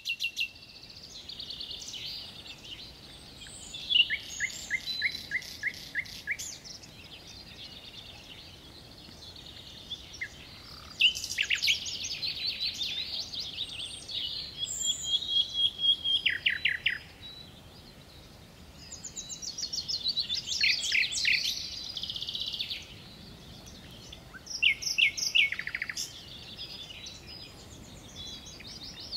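Songbirds singing in the woodland, phrase after phrase of rapid repeated notes and trills, over a quiet steady background hiss.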